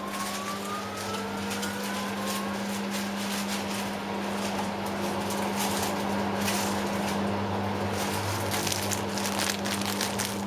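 A household appliance motor running with a steady hum; a whine rises in pitch over the first couple of seconds, with scattered light crackles and clicks.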